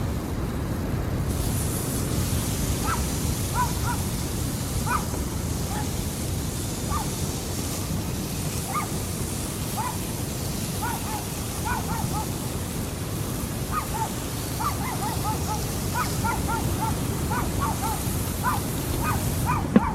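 Short animal calls repeating over a steady rush of surf and wind, some in quick pairs, coming more often in the second half.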